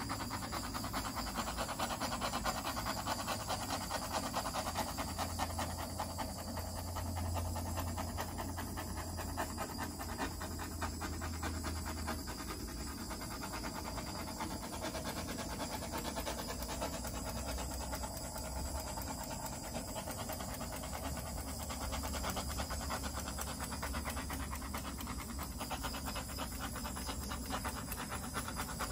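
Handheld torch flame hissing steadily as it is passed over wet acrylic pour paint to pop air bubbles in the surface.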